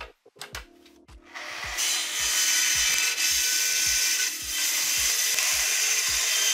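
Festool plunge-cut track saw starting up about a second in and then cutting steadily through a clear plastic sheet along its guide rail. It makes a loud, dense cutting noise with a high whine in it.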